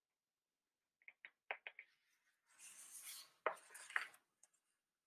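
Faint page turn of a hardcover picture book: a few small clicks, then a soft paper rustle with a couple of sharper ticks as the page is turned by hand.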